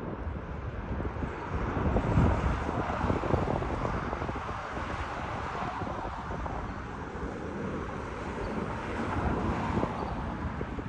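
Wind buffeting the microphone over the low, distant rumble of an Airbus A380's four Rolls-Royce Trent 900 turbofans at low thrust as the jet turns onto the runway. The wind swells and fades in gusts, strongest about two seconds in.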